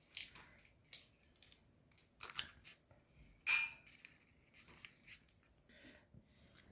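Scattered short rustles and clicks of things being handled, the loudest a sharp rustle about three and a half seconds in.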